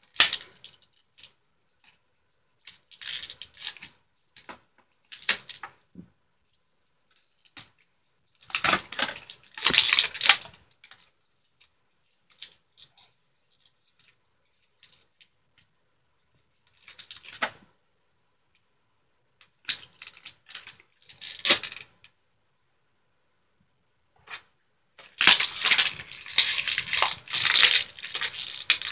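Stiff clear plastic toy packaging crackling and clicking in scattered bursts as it is handled and pried at, with a longer loud stretch of crackling over the last few seconds.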